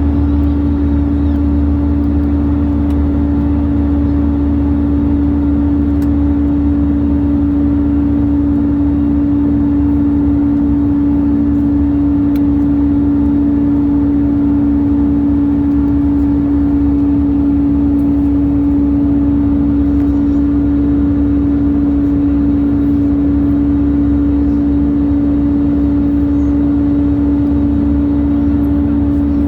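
Strange noise inside an Airbus A320 cabin: a loud, steady hum on one held tone over a constant low rumble, unchanging throughout.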